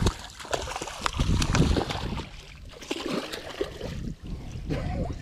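Water splashing and dripping as a redfish is scooped up in a landing net and swung aboard a boat, with irregular crackles and a low wind rumble on the microphone in the first couple of seconds.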